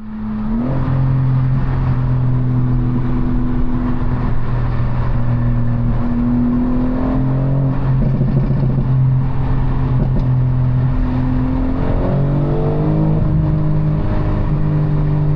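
BMW M4 Competition's twin-turbo inline-six running under load, holding a steady pitch that steps up and down a few times, with brief rising revs.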